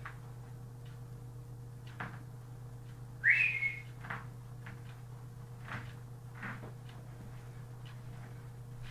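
Young African grey parrot giving one short rising whistle about three seconds in, with a few faint short clicks before and after it.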